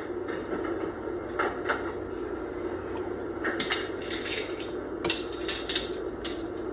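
Metal kitchen utensils clinking and scraping against pots and pans in short clusters, busiest from about halfway through, over a steady low hum.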